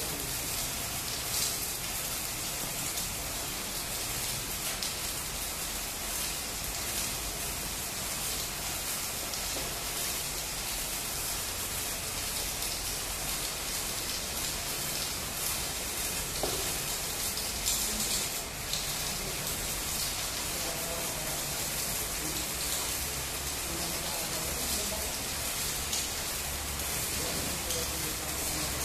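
Electric arc welding on steel plate: the arc's steady crackling sizzle, held without a break.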